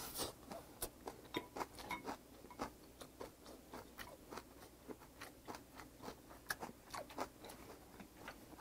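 A man chewing a mouthful of rice with soy-marinated crab and kimchi: faint, irregular wet smacking clicks, a few a second.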